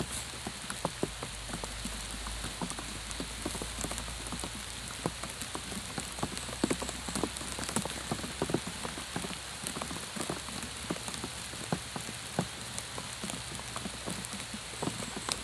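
Steady rain falling, with a dense scatter of irregular raindrop taps close by.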